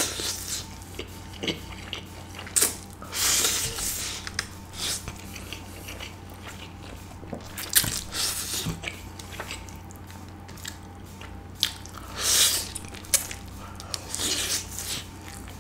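Someone eating Samyang jjajang instant noodles with chopsticks, close to the microphone: several loud slurps with wet chewing and mouth clicks between them. A fan hums steadily underneath.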